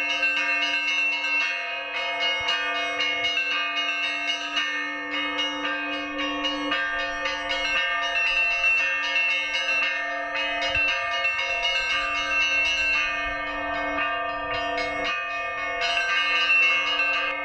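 Orthodox church bells rung in a continuous peal: quick repeated strikes on small, high bells over the steady ringing of a lower bell.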